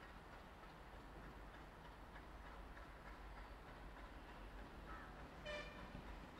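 Near silence: faint open-air background with a low steady hum, broken about five and a half seconds in by one brief high-pitched call.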